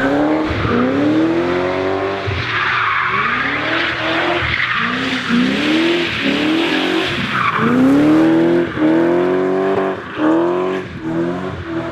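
A race car's engine revving up hard and dropping back again and again, as in short bursts of acceleration between tight corners, with tyres squealing, loudest about three seconds in and again near eight seconds.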